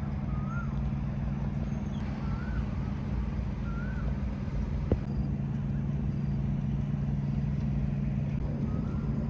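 Steady low hum of road traffic, with a bird's short whistled notes every second or two and one sharp click about halfway through.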